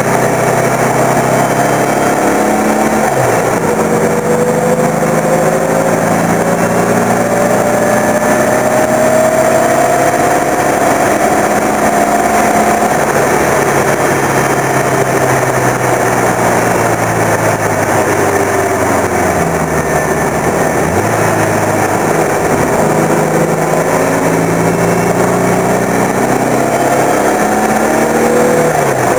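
Turbocharged VW Beetle engine pulling hard on track, its pitch climbing for several seconds at a time. It drops sharply at gear changes or lifts, about three seconds in, around twenty seconds in and near the end, over a steady rush of wind and road noise.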